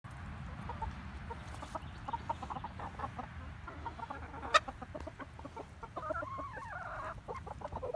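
A flock of hens clucking softly and continually as they feed, with one longer drawn-out call that rises then falls just after six seconds in. A single sharp click, the loudest sound, comes about halfway.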